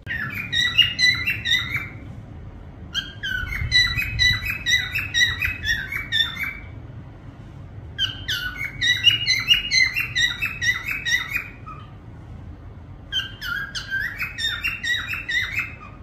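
A parrot whistling and chirping in four bursts of quick, repeated short notes, each burst a few seconds long with brief pauses between.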